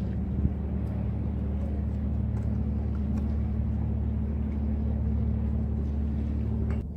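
An engine running steadily with a low drone, cutting off suddenly near the end.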